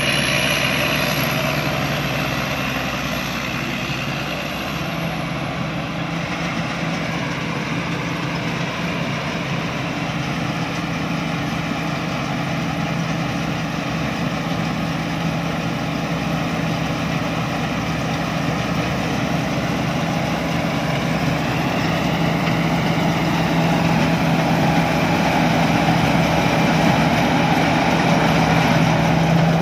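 Rice combine harvester running steadily, its engine and machinery humming under load, growing a little louder toward the end.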